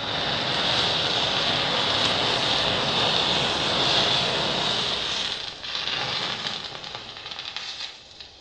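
Many safety match heads flaring up together with a loud, steady hissing rush. After about five seconds it thins into uneven crackling as the flames die down, then drops off near the end.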